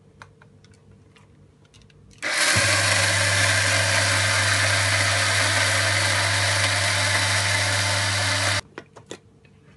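Small electric blade grinder running steadily as it grinds cocoa nibs and sugar toward a fine powder, starting a couple of seconds in and stopping suddenly about six seconds later. A few light clicks in the quiet either side.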